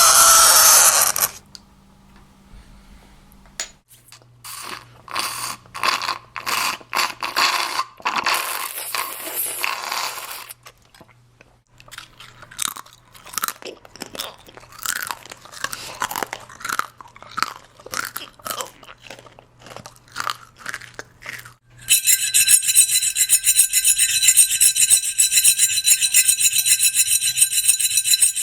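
A run of irritating close-up sounds: the end of a high scraping screech of chalk on a blackboard, then loud sipping and slurping of a drink, then about ten seconds of crisps being crunched and chewed. About 22 seconds in, cutlery scraping on a plate starts, a loud, high, grating squeal.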